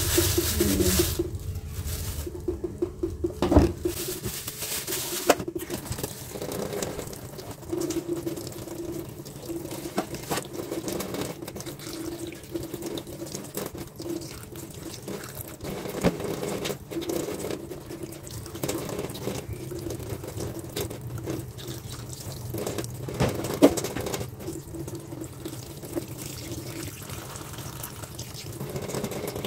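Water running and splashing in a stainless steel kitchen sink as fish are rinsed by hand, with a few sharp knocks against the metal.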